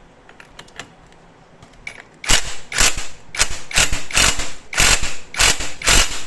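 A ratchet wrench clicking in quick repeated strokes, about two a second, starting a little over two seconds in after a few faint clicks, while fasteners on the clutch of a Yamaha R15 V3 are worked.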